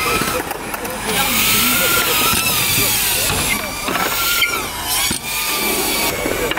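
FPV drone's motors and propellers whining with a hiss of rushing air. The whine wavers up and down in pitch as the throttle changes, and it jumps abruptly twice where the takes are spliced.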